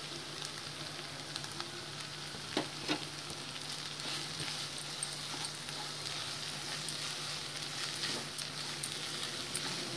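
Chopped chicken sizzling dry in oil in a non-stick pan, its water cooked off, with a steady hiss and scattered crackles. Masala powders are tipped in and a wooden spatula stirs and scrapes through the mix, with a few sharper clicks about two and a half to three seconds in.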